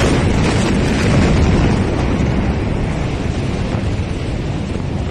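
Blast of the 2020 Beirut port ammonium-nitrate explosion picked up by a phone microphone: a loud, sustained rumble of noise that hits suddenly at the start and eases off slowly.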